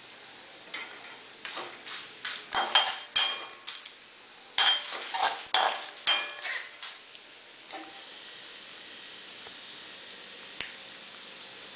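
A utensil stirring and scraping coriander seeds, cumin and chana dal frying in oil in a metal kadai: a run of clanks and scrapes against the pan for the first several seconds, then the oil's steady sizzle.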